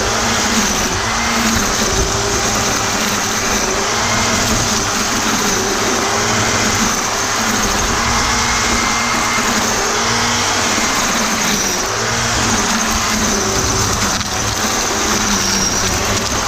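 Black & Decker GL7300 700-watt electric string trimmer running steadily, its line cutting grass, with a high motor whine that wavers slightly in pitch.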